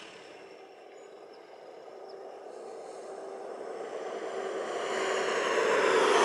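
A motor vehicle running, its engine and mechanical noise growing steadily louder, strongest near the end.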